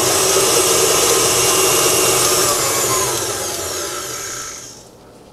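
KitchenAid stand mixer running fast, its flat beater creaming butter and sugar in a steel bowl. About three seconds in, the motor's whine falls in pitch and the mixer winds down to a near stop.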